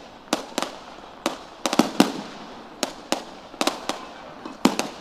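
Firecrackers going off in an irregular series of sharp bangs, a dozen or more, some coming in quick clusters of two or three.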